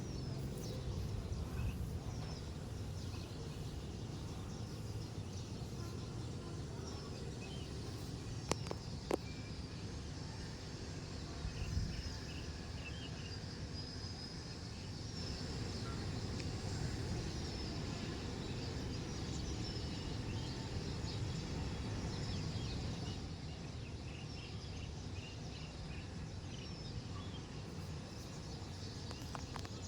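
Outdoor ambience: a steady low noise with many short, high bird chirps scattered through it, and two sharp clicks about eight and nine seconds in.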